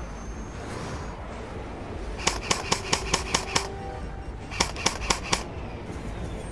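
Airsoft gun firing rapid single shots, about five a second: a string of seven sharp cracks, then four more about a second later. Background music runs underneath.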